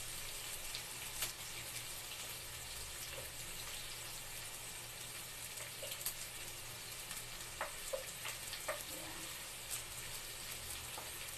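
Sliced onions sizzling steadily in hot oil in a pan, with a few light clicks scattered through it.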